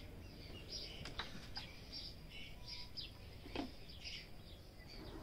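Small birds chirping faintly, with short high chirps repeating one after another and a few light clicks among them.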